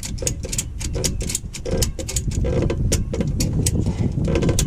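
A ratchet strap being cranked tight, its pawl giving a rapid string of sharp clicks, several a second, over a steady low rumble.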